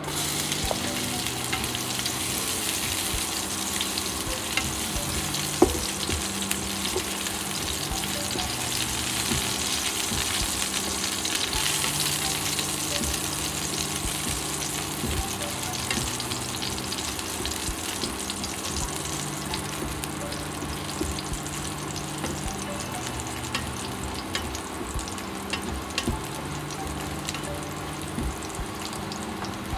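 Chopped garlic sizzling in hot oil in a nonstick frying pan, starting as it goes into the pan, while a plastic spatula stirs and scrapes it with small ticks against the pan. One sharp tap stands out about five and a half seconds in.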